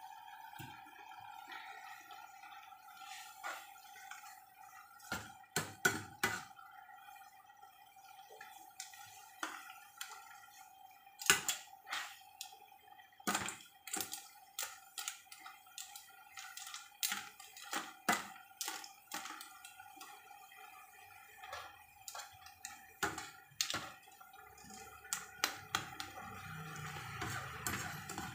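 A metal ladle clinks and scrapes against a cooking pan as noodles are stirred, giving many sharp, irregular knocks over a steady hum. A low rumble comes in near the end.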